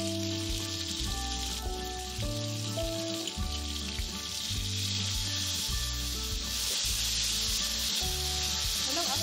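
Blended chilli paste and fried garlic sizzling in hot oil in a steel wok, the sizzle growing louder about halfway through. Soft background music with held chords plays underneath.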